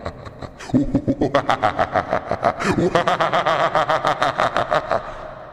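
A man laughing hard, open-mouthed, in a quick, even run of laughter pulses that starts in earnest about a second in and dies away near the end.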